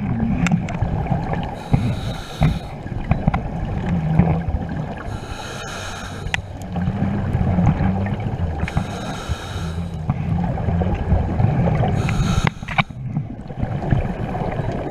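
Scuba diver breathing through a regulator underwater: a hiss of air with bubbling exhalations about every three to four seconds, over a steady low rumble.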